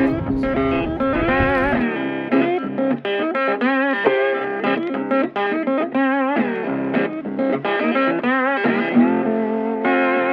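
Background music: a guitar playing a melody whose held notes waver in pitch.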